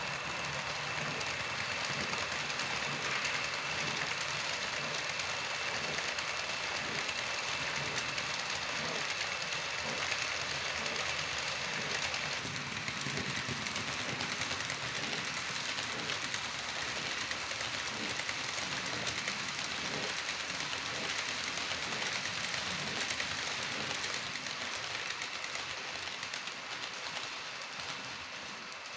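An H0-scale model passenger train running on the layout track: the steady whir of the model electric locomotive's motor and wheels on the rails, with light clicking over rail joints. A thin steady high whine is heard through the first half.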